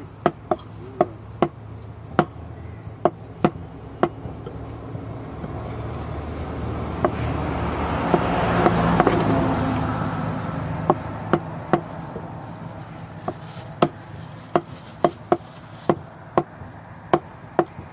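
Meat cleaver chopping mutton and bone on a round wooden log block: sharp, irregular strikes, at times two a second, thinning out in the middle. A broad rushing noise swells up and fades away in the middle.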